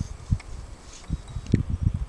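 Footsteps through snow: irregular low thumps of steps, with rustling and a few faint clicks.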